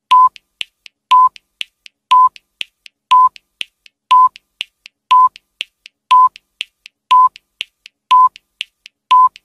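Countdown timer sound effect: a short electronic beep once a second, ten in all, with fainter ticks between the beeps.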